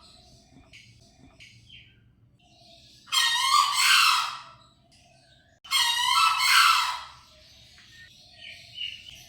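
Green junglefowl (Gallus varius) crowing: two hoarse, harsh crows about two and a half seconds apart, each lasting about a second and a half. Faint short chirps come between them.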